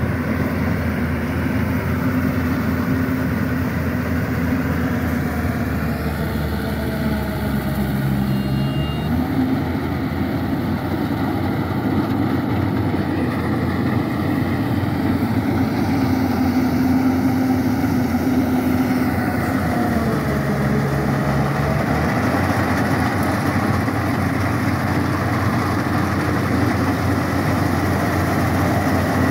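Yanmar YH880 rice combine harvester's diesel engine running steadily under load while it cuts and threshes paddy, its tone shifting briefly twice.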